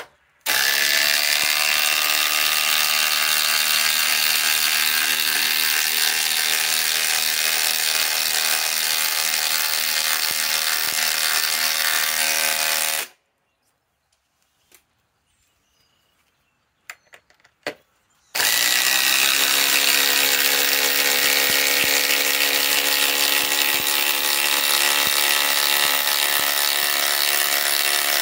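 Cordless impact drivers hammering 6-inch lag screws into thick lumber, in two runs. A DeWalt DCF845 drives one for about 12 seconds. After a pause of about five seconds with a few light clicks, a Ryobi 2200 inch-pound four-speed impact driver drives another and is still going at the end. Each run starts with a quick rise in pitch as the motor spins up, then settles into a steady, rapid hammering.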